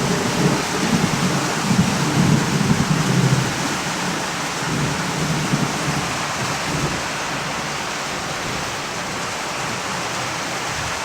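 Heavy rain falling steadily during a thunderstorm, with a low rumble of thunder for the first few seconds that then fades, leaving only the hiss of the rain.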